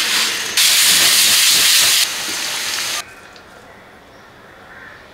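Loud hissing of food cooking, noodles in a steel pot of rolling boiling water, in short pieces that change abruptly twice. It drops to a faint hiss about three seconds in.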